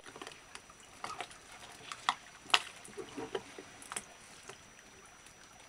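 Light water sounds with scattered sharp clicks and knocks around an inflatable dinghy, the loudest knock about two and a half seconds in.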